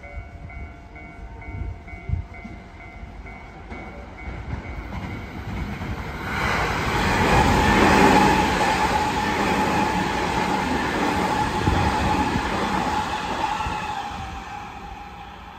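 Eight-car JR West 225 and 223 series electric rapid train passing through at speed. A rush of wheel and rail noise with a steady hum under it swells from about six seconds in, is loudest around eight seconds, and fades away near the end.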